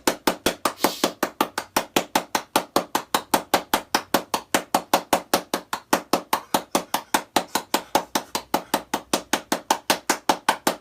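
Rapid, evenly spaced sharp knocks or taps, about five or six a second, in a steady unbroken rhythm.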